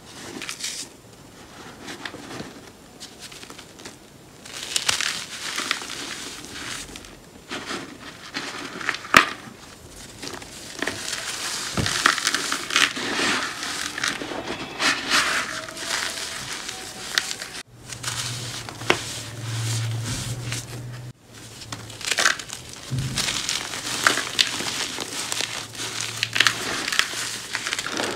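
Hands squeezing and crumbling cornstarch powder and pressed cornstarch pieces: a continuous crunching and crackling with sharp snaps now and then.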